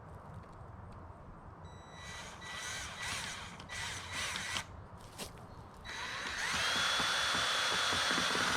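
A power drill running in several short bursts, then spinning up into one longer, steady run of a couple of seconds that cuts off near the end.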